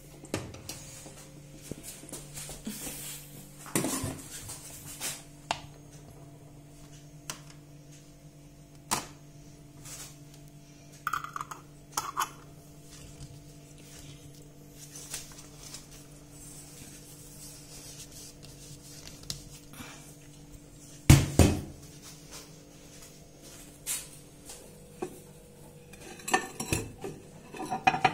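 Scattered clinks and knocks of kitchenware as glass jars with metal screw lids and a bowl are handled, one knock about three quarters of the way through louder than the rest. A steady low hum runs underneath and stops near the end.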